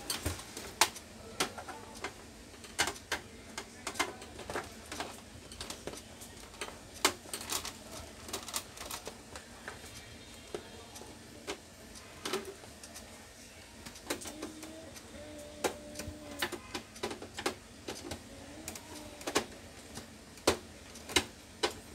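Irregular sharp clicks and taps of hands and a screwdriver working on an Epson L1300 printer's plastic casing, sometimes several a second.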